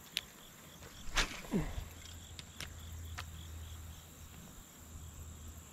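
Faint insects chirping over a low steady rumble, with a few sharp clicks and one short low call that falls in pitch about a second and a half in.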